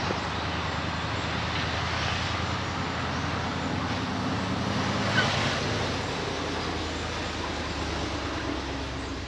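A vehicle engine running steadily, with a constant rush of road noise.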